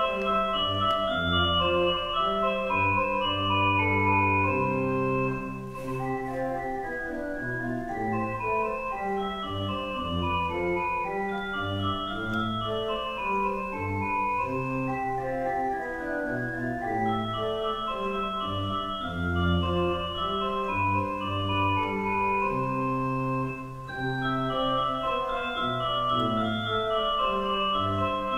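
Pipe organ playing prelude music: sustained chords over held pedal bass notes, with two brief breaks between phrases.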